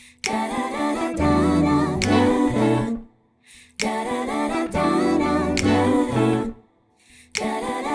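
Background music: a song with singing over a bass line and beat, which drops out briefly about three seconds in and again near the end.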